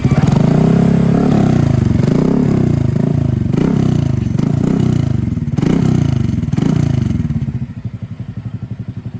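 Honda Click scooter's single-cylinder four-stroke engine breathing through an SC Project aftermarket exhaust, revved up and down in repeated blips, then settling back to a steady idle near the end.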